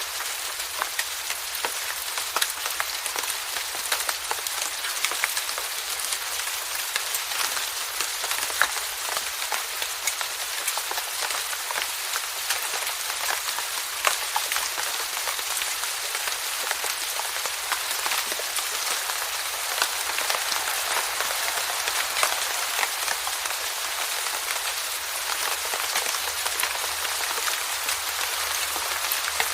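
Steady rainfall: a dense, even hiss of falling rain with many sharp single drop hits throughout.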